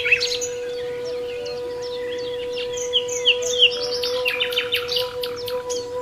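Songbirds chirping in many short, quick calls, thickest a few seconds in, over one long steady note held on a ney, the Turkish reed flute.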